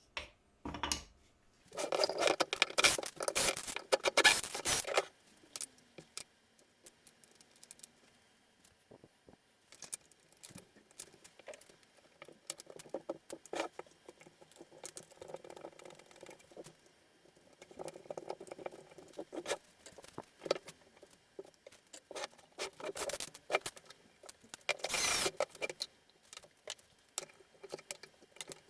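Intermittent clicks, taps and short scraping bursts of tools and parts being handled at a workbench, loudest for a few seconds near the start and again briefly near the end.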